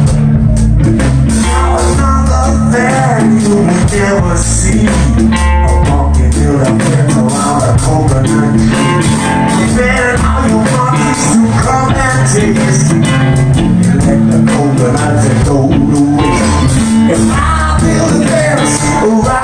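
Live blues-rock band playing loudly: electric guitars and bass over a steady drum-kit beat, with a man singing from about two seconds in.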